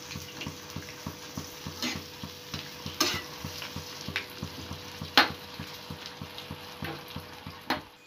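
Steel spoon stirring chopped tomatoes and onions in a frying pan: a quick run of soft scraping strokes with a few sharp knocks against the pan, over a faint sizzle from the cooking mixture. The stirring stops just before the end.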